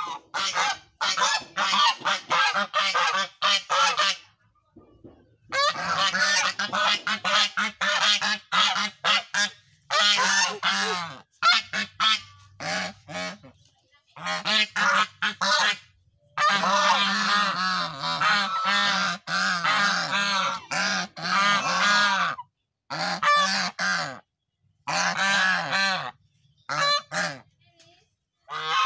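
A small flock of white domestic geese honking, several at once, in quick repeated calls. The calls come in bouts of a few seconds broken by short pauses.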